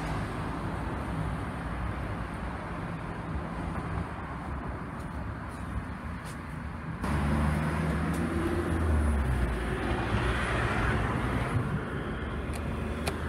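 Road traffic: a motor vehicle's engine running close by with a low rumble, getting louder about seven seconds in. A sharp click comes near the end as the lift's call button is pressed.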